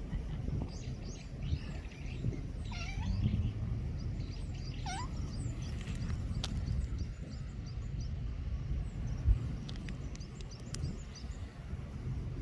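A young cat giving two short mews, about three and five seconds in, over birds chirping and a low steady outdoor rumble, with a single knock near the end.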